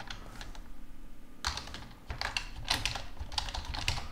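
Typing on a computer keyboard: a couple of keystrokes near the start, then an irregular run of about ten key clicks from about a second and a half in.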